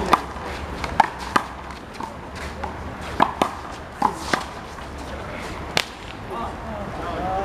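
A small rubber handball slapped by bare hands and smacking off the wall and the pavement during a one-wall handball rally: a string of about eight sharp smacks at an uneven pace, stopping about two thirds of the way in.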